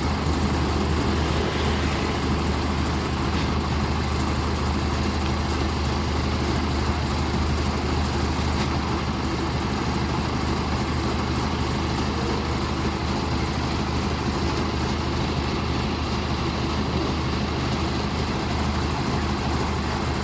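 Kubota DC-105X combine harvester's diesel engine running at a steady, unchanging drone.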